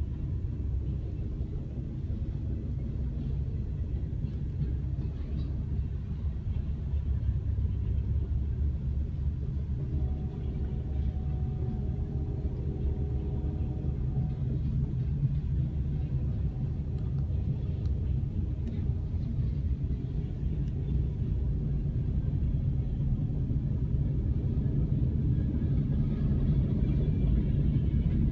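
Freight train of boxcars and covered hopper cars rolling past a level crossing, a steady low rumble heard from inside a car.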